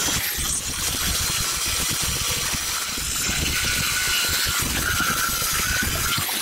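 Angle grinder running with its abrasive disc grinding against the side of a metal V-pulley held on a bolt in a vise, a continuous metal-on-abrasive grind over a dense, uneven rattle.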